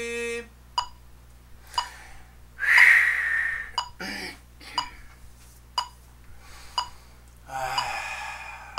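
Metronome clicking steadily about once a second. A held sung note breaks off half a second in, then a loud breath out about three seconds in, a short voiced sound around four seconds, and another breath near the end, from a singer winded by the long notes.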